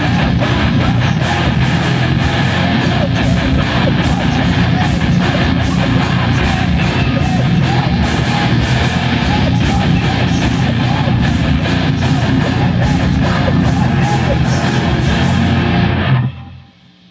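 Live heavy metal band playing: distorted electric guitars, bass guitar and drums with regular pounding hits. The song cuts off suddenly near the end.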